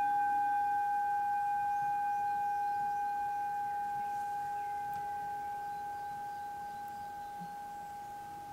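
A small hand-held metal singing bowl rings on after being struck, a steady pure tone with a higher overtone that slowly fades and wavers gently. It is sounded to close a guided meditation.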